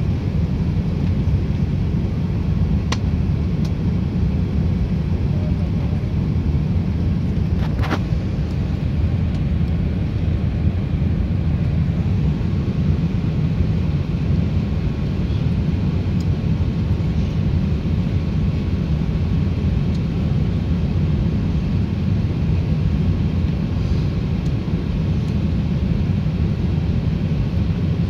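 Steady low rumble of engine and airflow noise inside the cabin of an Airbus A380-800 descending on final approach. Two brief clicks sound within the first eight seconds.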